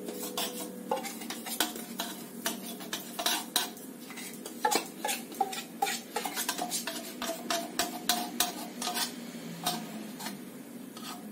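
A metal spoon scraping and clinking inside a small metal condensed-milk can, emptying out the last of the thick milk. The strokes are quick and irregular, some with a short metallic ring, and they thin out near the end.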